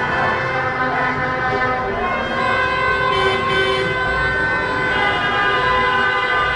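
Many car horns blaring at once, long overlapping held tones that shift in pitch as some horns stop and others start.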